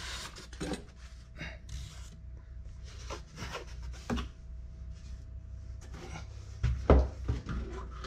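Handling noise as a styrofoam shipping box is slid out of a cardboard carton and set down on a wooden stand: scattered rubs, scrapes and light knocks, with a heavier thump about seven seconds in.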